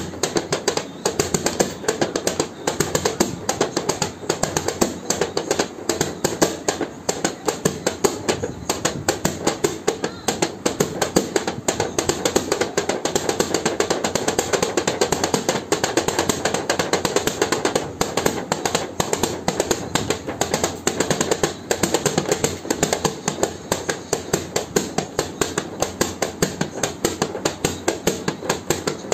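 Rapid, steady repeated knocking, several sharp strikes a second without a break.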